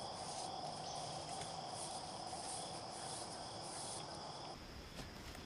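Insects chirring in a steady, unbroken chorus, which drops away at a cut about four and a half seconds in.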